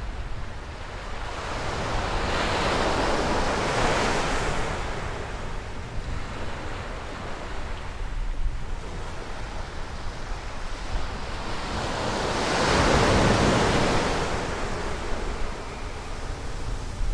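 North Sea surf breaking and washing up a sandy beach, swelling twice, about ten seconds apart. Wind rumbles on the microphone throughout.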